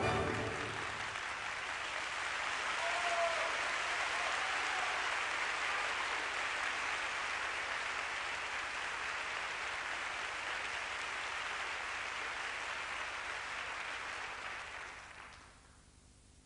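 Audience applauding steadily for a ballet dancer's finished solo, then dying away about fifteen seconds in.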